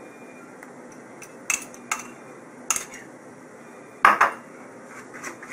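A metal fork clicking against a wooden bowl while mixing a thick sauce into mayonnaise: a few short sharp clicks, the loudest about four seconds in.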